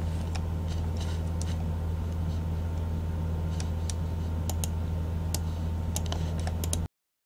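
Scattered sharp clicks of a computer mouse and keys, irregularly spaced, over a steady low electrical hum. Everything cuts off abruptly near the end.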